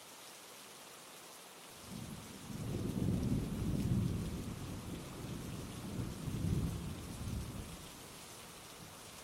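Steady rainfall hiss with a long rolling rumble of thunder that begins about two seconds in, swells twice and dies away near the end.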